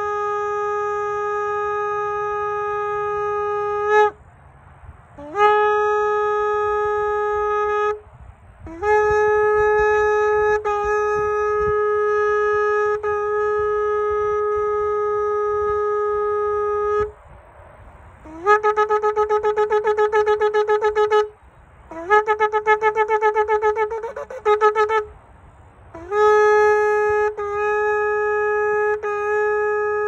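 A shofar, a short curved horn, blown in a series of blasts with short breaths between them. Most blasts are long and steady on one pitch, each starting with a brief upward scoop, and the longest runs about eight seconds. Two blasts in the middle are rapidly pulsing and wavering.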